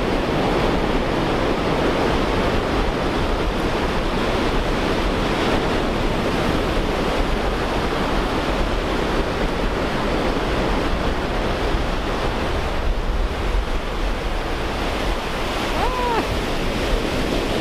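Ocean surf breaking and washing in over a shallow beach, a steady rush of water, with wind buffeting the microphone as a low rumble underneath.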